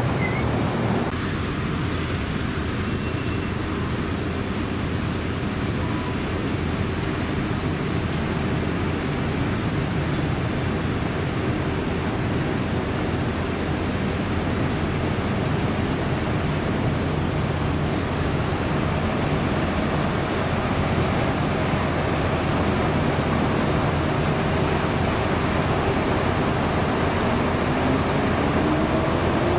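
Steady road traffic: cars, taxis and buses running along a busy multi-lane city street. Near the end, one engine rises in pitch as a vehicle pulls away.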